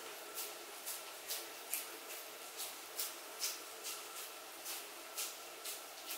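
Oiled hands squeezing and patting minced-meat kabab mixture onto a skewer, a soft wet squish about twice a second, over a faint steady hum.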